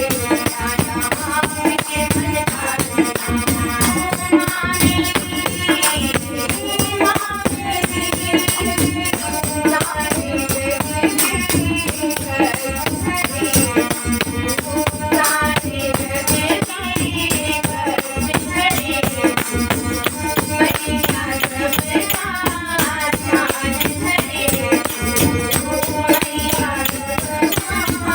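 Devotional Hindu bhajan to the Mother Goddess: melodic singing over a steady shaken-rattle rhythm.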